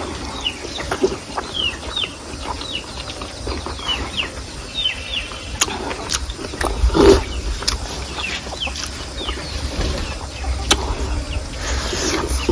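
Chickens clucking and chirping with many short, high, falling calls. A louder knock or crunch comes about seven seconds in.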